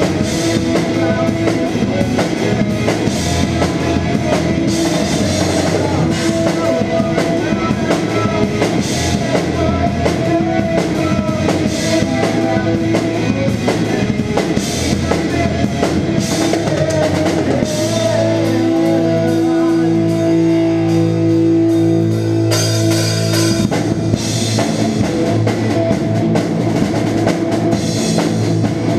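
Rock band playing live on electric guitars and a drum kit. About eighteen seconds in the drums drop out and the guitars hold ringing chords for a few seconds, then the drums come back in.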